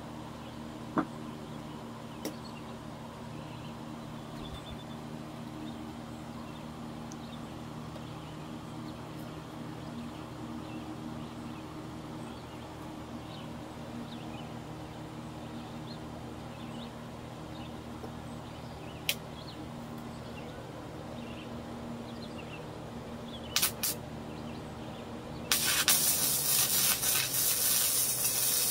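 Steady low hum with a few light clicks, then near the end two brief arc strikes followed by the loud, steady crackling hiss of an electric arc welding a steel frame.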